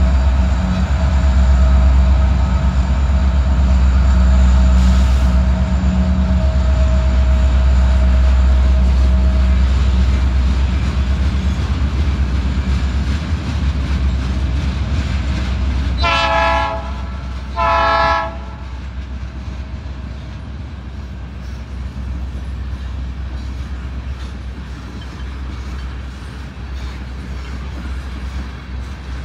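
Canadian National freight train passing. A diesel locomotive's low rumble dominates at first and eases over the first ten seconds or so. Around the middle a locomotive horn sounds two blasts about two seconds apart, then the tank cars keep rolling by with a steadier, quieter clatter.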